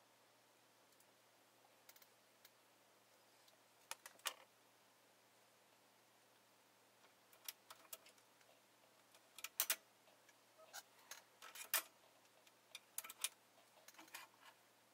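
Near silence broken by irregular small clicks and ticks: a couple about four seconds in, then many more scattered through the second half.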